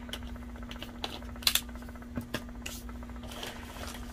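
Plastic jar of glitter being handled: its lid closing and the jar set down on a table, heard as a few sharp clicks and knocks, the loudest two close together about a second and a half in. A soft rustle of paper follows near the end, over a steady low hum.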